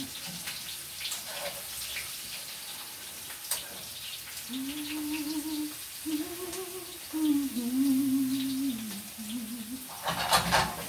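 A woman humming a wavering tune for about five seconds, over a faint crackle of chips frying in a pan, with a brief loud rattle near the end.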